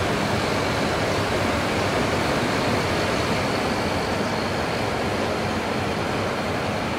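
Steady fan and compressor hum of an S&A RMFL-1000 water chiller running in a fiber laser's cabinet, just switched on with the Raycus RFL-C1500 laser source, with a faint high whine over it.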